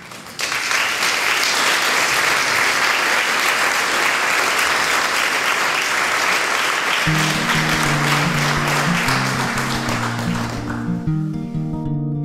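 Audience applauding, starting about half a second in and dying away near the end. Instrumental music with low sustained notes comes in about seven seconds in and carries on.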